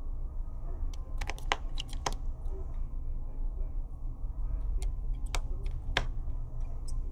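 Irregular light metal clicks and taps as a precision screwdriver and small screws and cover plates are fitted over the display connectors inside an opened iPad.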